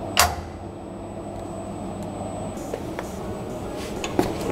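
A sharp metal clack as a Starrett 98-6 machinist level is set down on a steel mill table, then a steady low hum with a few faint ticks and another knock near the end.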